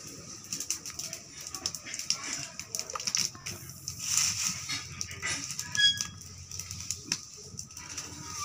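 Dry leaves and twigs rustling and crackling as they are pushed by hand into a small leaf fire burning under an iron wok, with many short, irregular clicks and crackles.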